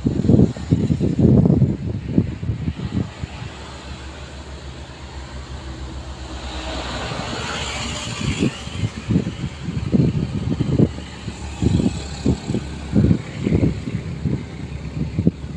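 Mini excavator's diesel engine running under load, its sound swelling and brightening for a few seconds midway as the hydraulics work. Irregular low thuds come in the first few seconds and again through the second half.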